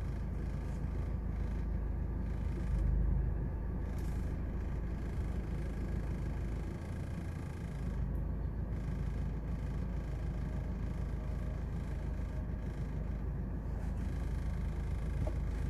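Vehicle engines idling with a low, steady rumble, heard from inside a car's cabin.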